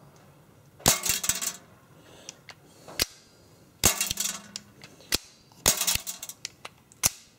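Zombie Army M29 gas BB revolver firing about three shots, each a sharp pop, with lighter clicks between them.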